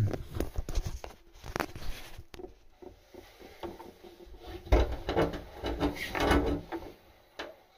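Irregular clicks, taps and knocks of a kitchen mixer tap's fittings being handled and pushed into place, the flexible hoses and washers, with a busier run of knocking about five to six seconds in.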